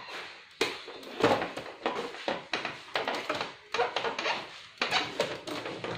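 Irregular plastic clicks and knocks, two or three a second, from handling the scanner unit of an HP 2515 all-in-one printer while its flex cable is plugged in underneath.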